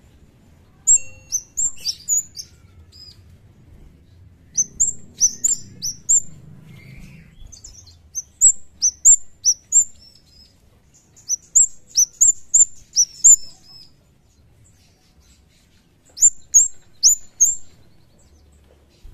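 Scarlet-headed flowerpecker calling in five quick bouts of sharp, very high chirps. Each note is a short downward-sweeping tick.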